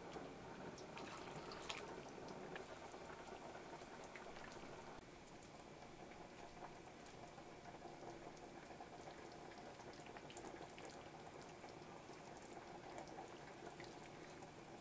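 Faint bubbling of liquid simmering in a pot, with small scattered pops; it gets a little quieter about five seconds in.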